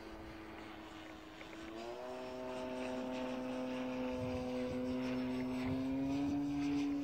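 Electric motor and propeller of a GeeBee R3 radio-controlled model plane in flight, a steady whine that steps up in pitch about two seconds in and grows louder toward the end. The motor is being run in on a 4S battery.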